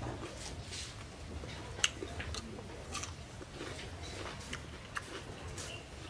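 A person chewing raw cucumber and carrot close to the microphone: irregular short crisp crunches and mouth clicks.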